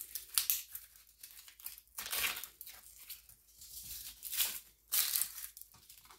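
Dry papery outer skin of an onion crinkling and tearing as it is peeled off by hand, in short, irregular crackles.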